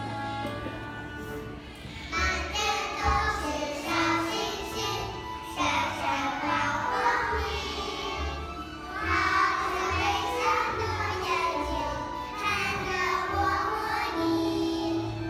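A group of young kindergarten children singing together over a recorded instrumental backing track with a steady bass beat; the accompaniment plays alone at first and the children's voices come in about two seconds in.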